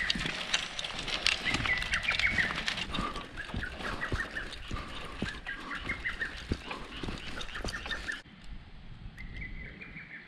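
A bird calls loudly and over and over, over a scatter of clicks and rattles from the bicycle being ridden. About 8 seconds in the sound cuts suddenly to a quieter hiss, and the bird calls once more.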